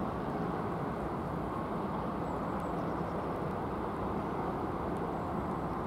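Steady outdoor rumble and hiss with no distinct events or tones.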